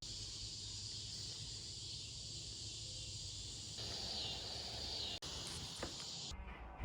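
A steady, high-pitched chorus of insects, such as crickets, in the open air. Near the end the chorus cuts off, leaving a low rumble.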